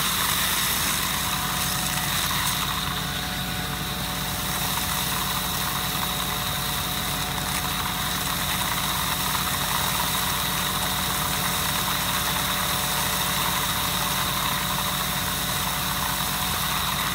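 Hasatsan H 230 vacuum hazelnut harvester running steadily: its engine and suction fan make a constant hum, with a steady high whine over it.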